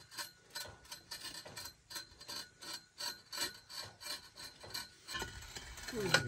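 Steel drill pipe being worked by hand in a borehole, a rhythmic rasping scrape at about three strokes a second.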